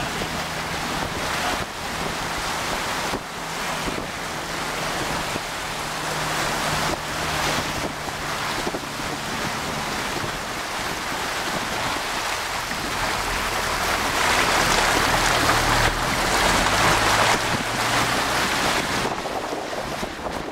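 Toyota Land Cruiser wading through deep floodwater: a steady rush of churned water along its side, with a low engine drone underneath and wind on the microphone. The rush of water grows louder a little past halfway through, then eases near the end.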